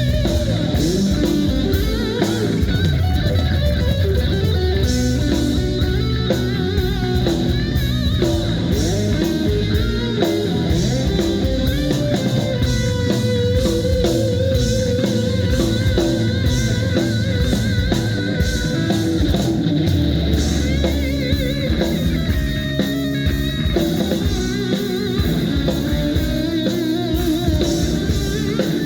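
Rock band playing live: electric guitar over a drum kit, with a steady beat.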